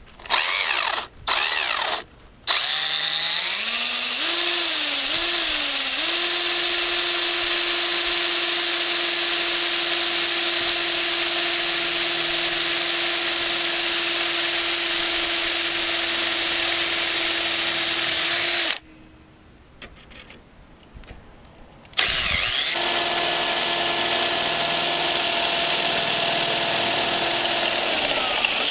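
Cordless drill boring bolt holes into a plastic radiator support. A few short trigger pulses, then the motor winds up to a steady whine for about fifteen seconds, stops, and runs steadily again for about seven seconds before winding down near the end.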